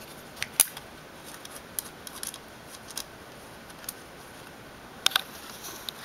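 Small irregular metallic clicks and ticks as an Allen wrench unscrews a screw from an airsoft gun's body. A few sharper clicks come about half a second in and again about five seconds in.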